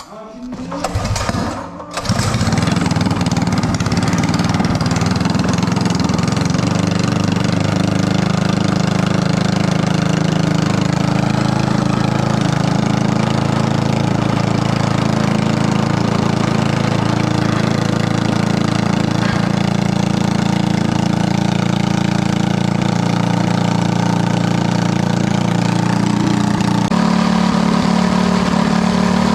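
Predator 212 single-cylinder four-stroke engine with a stage 3 kit pull-started on the recoil. It catches about two seconds in and runs steadily at a fast idle of about 4,000 RPM, with a slight shift in tone near the end.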